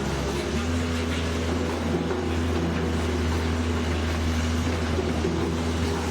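Firewood processor's engine running steadily with a constant low drone.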